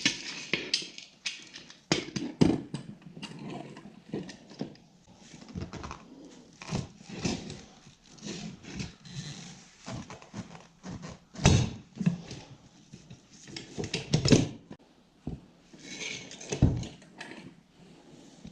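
Irregular knocks, clanks and scrapes of hand tools and metal wheel parts being handled during a moped rear tyre change, with the loudest knocks about 11 and 14 seconds in.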